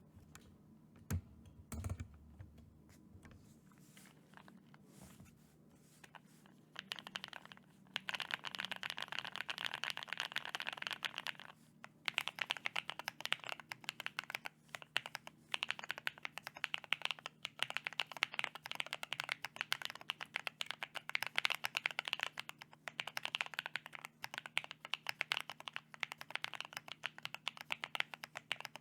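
Fast typing on a mechanical keyboard fitted with NicePBT Noel PBT keycaps: a few scattered key clicks, then from about seven seconds in a dense, quick run of keystrokes with one short break partway through.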